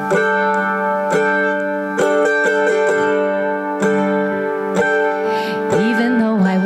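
Live worship band playing an instrumental passage: strummed guitars over long sustained chords, with no singing.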